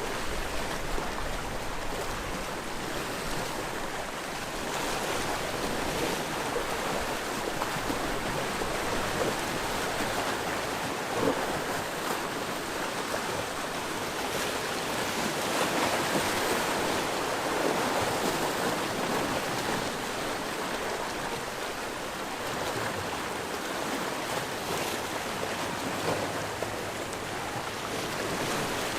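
Sea waves washing against the shore: a continuous rushing surf that swells louder about halfway through and then eases back.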